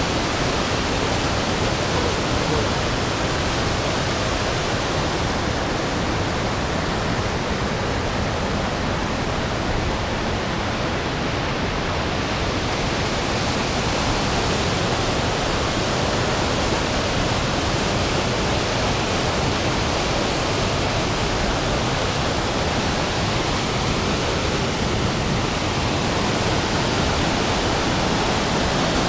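Fast mountain stream rushing over rocks in white-water rapids: a loud, steady rushing of water.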